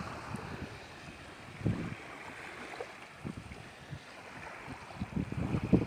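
Shallow water washing over the sand at the shore, with a few low gusts of wind buffeting the microphone, one about two seconds in and more near the end.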